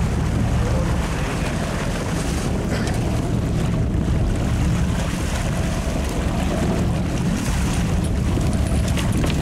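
Steady low rumble of a boat's engine, with water rushing and splashing along the hull and wind buffeting the microphone.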